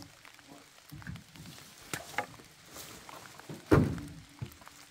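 Cut wooden logs knocking and thudding as they are handled and dropped onto a stacked load. There are a couple of light knocks about two seconds in and one loud thud about three and a half seconds in.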